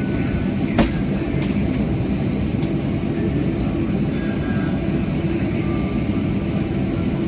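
Steady low rumble of an airliner's engines and airframe heard from inside the passenger cabin, with one sharp click about a second in.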